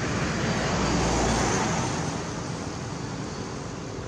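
Road traffic noise: a vehicle passing, swelling about a second in and then fading.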